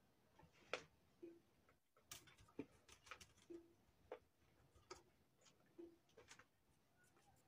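Near silence with faint, uneven ticking clicks, about two a second, some carrying a brief low tone.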